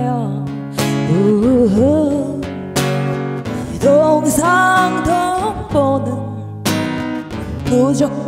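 A blues song performed live: a singer holding and bending long notes over guitar chords strummed every couple of seconds.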